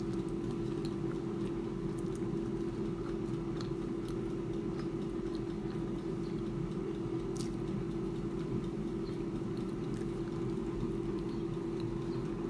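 Klarstein AeroVital air fryer running mid-cook: a steady fan-and-motor hum at one constant pitch, with faint scattered small clicks and crackles.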